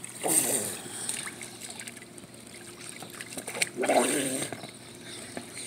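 Light splashing and trickling of swimming-pool water as a child moves about in it.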